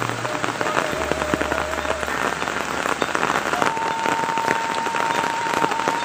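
Steady rain falling on leaves, ground and roofs: a dense hiss of drops with many small ticks. A faint thin steady tone sounds through it, rising to a higher pitch about midway.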